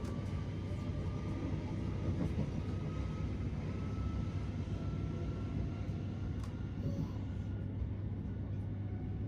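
Inside a Class 387 Electrostar electric train running between stations: a steady rumble of the wheels on the track with a low hum, and a faint whine that rises slowly in pitch and fades about six seconds in.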